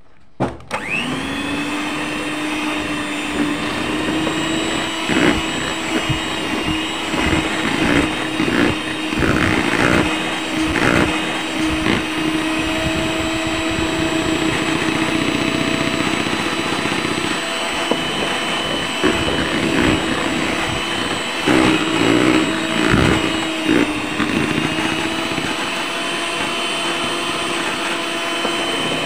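Miyako electric hand mixer switching on about half a second in, its motor quickly settling into a steady whine as the wire beaters whip a thick butter and margarine batter. Irregular knocks come through over the motor.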